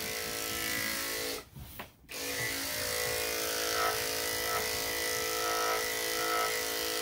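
Corded electric dog-grooming clippers running with a steady, even hum as they trim a wet Schnauzer's coat. The sound drops out briefly about a second and a half in, then carries on.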